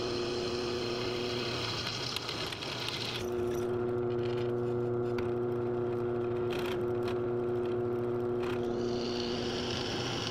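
Electric drill running at a steady pitch while boring holes through a metal mounting plate; the sound changes a little about three seconds in and then holds steady.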